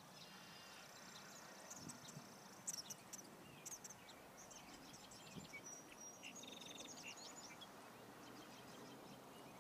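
Faint songbirds chirping and trilling over quiet outdoor background, with a few louder high chirps about three seconds in.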